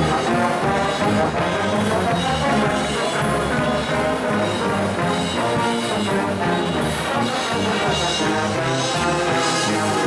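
Pep band brass section, trombones and sousaphone, playing a tune.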